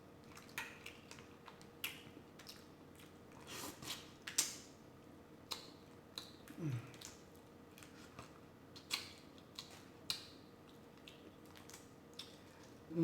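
Close-miked eating sounds: scattered crunches, smacks and clicks of chewing and biting, a dozen or so spread out, with a short low falling hum about six and a half seconds in.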